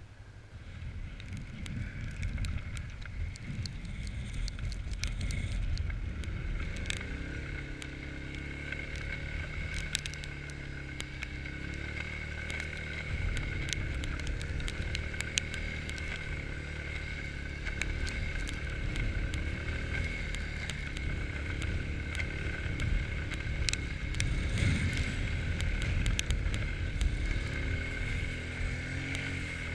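Quad bike (ATV) engine running under way, its note rising and falling with the throttle about a quarter of the way in. A steady high whine and scattered sharp ticks run along with it.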